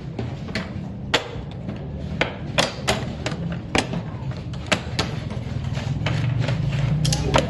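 Draughts pieces being clacked down hard on a board during a game of abele, with several sharp knocks at uneven intervals over a low background rumble.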